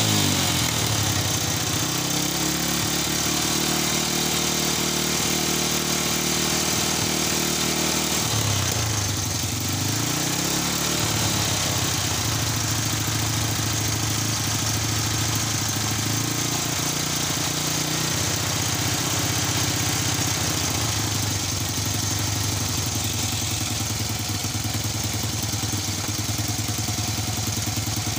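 Honda Wave 100's single-cylinder four-stroke engine running at idle on its freshly cleaned and refitted carburetor, the idle mixture not yet adjusted. The revs ease down at the start, dip and pick up again about nine to eleven seconds in, then settle into a steady idle.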